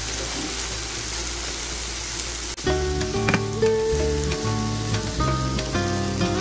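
Chopped tomato, onion and green capsicum sizzling in a hot non-stick frying pan as a spatula stirs the mixture. Background music comes in about two and a half seconds in.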